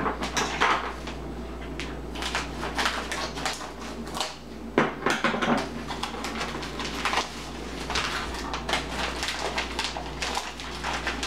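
Plastic wrapper of a frozen, individually wrapped tilapia fillet crinkling and crackling in an irregular run as it is cut open with scissors and handled.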